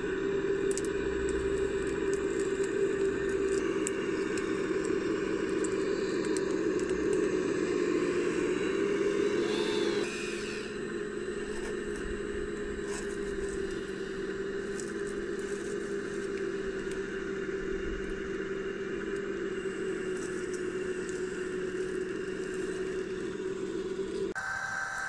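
3D-printed RC excavator's electric drive motors and gearboxes whining steadily as it crawls and works on gravel, with small crackles and scrapes of stones under the tracks.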